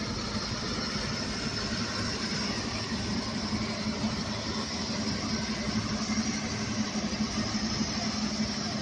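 Steady rushing hiss of a high-pressure water jet from a fire-fighting robot's monitor nozzle, over a steady low hum.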